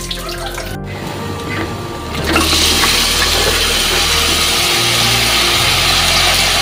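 Tap water running briefly onto a strainer, then, after a cut, chicken feet cooking in a stainless steel pot on a gas stove give a loud, steady hiss that starts about two seconds in. Background music plays throughout.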